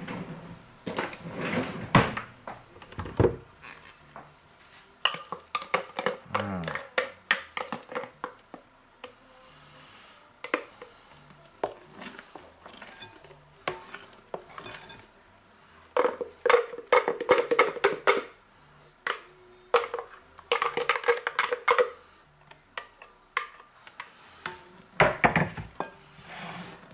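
A spatula scraping and knocking against a mixing bowl in several runs of quick strokes as a batter is folded and stirred.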